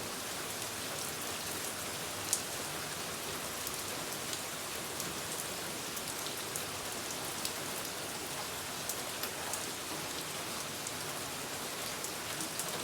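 Steady rain falling, an even hiss with scattered drop ticks and one sharper tap about two seconds in.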